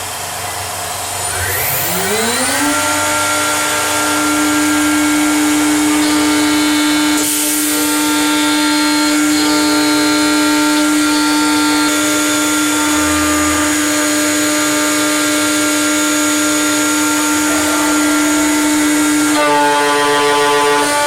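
Chinese CNC router spindle on a home-built mill spinning up with a rising whine about two seconds in, then running at a steady high speed. Its overtones shift several times as the machine works the aluminium part.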